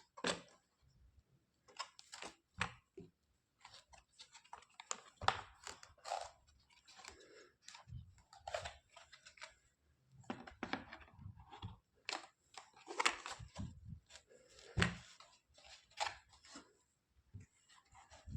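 Small plastic toys or their packaging being handled: irregular rustling, light clicks and knocks.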